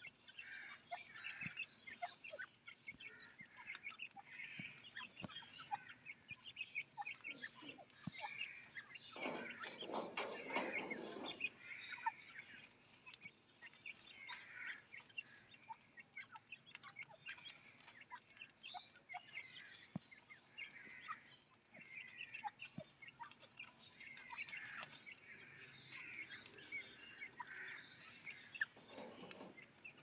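Mixed flock of budgerigars, cockatiels and teetar (francolins) calling while feeding, a steady chatter of many short high chirps. About nine seconds in there is a louder, fuller burst lasting about two seconds, and another near the end.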